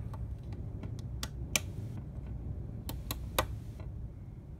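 Brass HO-scale 4-6-6-4 Challenger model running on track: a low, steady hum from its motor and spur-gear drive, with sharp metallic clicks as the centipede tender's wheels cross gaps in the rail, the loudest about one and a half and three and a half seconds in.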